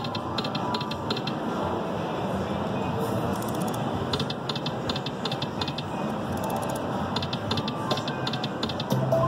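Video slot machine spinning, with several runs of rapid electronic clicks as its reels spin and stop, over a steady background din.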